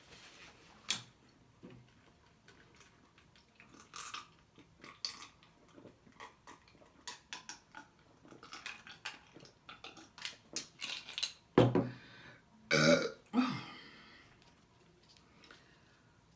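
A person eating seafood, with a run of wet lip-smacking and chewing clicks that grows denser toward the middle. Then come two loud burps a little over a second apart, the second longer and falling in pitch.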